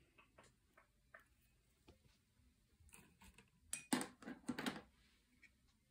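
Faint light clicks and taps of small objects being handled, then a brief louder clatter and rustle about four seconds in.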